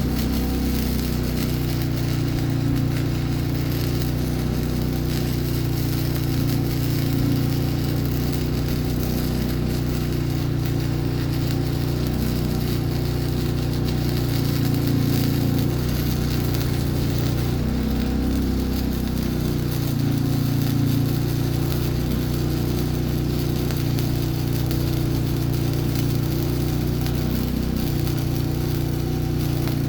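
Flux-core wire welder running, its arc crackling over a steady low hum, with a brief change in the sound partway through.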